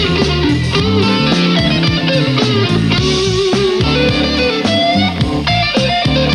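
Blues-rock band music led by an electric guitar playing lead lines, with notes that bend and slide in pitch over a steady bass line.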